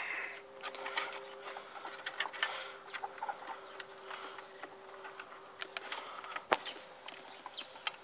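Scattered small plastic clicks and rattles of a car stereo head unit and its wiring harness being pulled out of the dash, over a faint steady hum that stops about six and a half seconds in.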